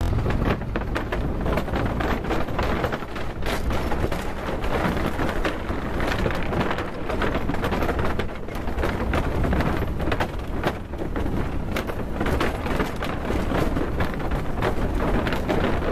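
A small vehicle rolling across the wooden-plank deck of a suspension bridge: a steady low rumble with dense rapid rattling, mixed with wind buffeting the microphone.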